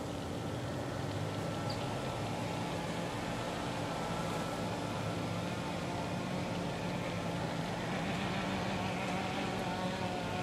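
Steady motor drone with a constant hum, even in level, and a few faint, very short high chirps.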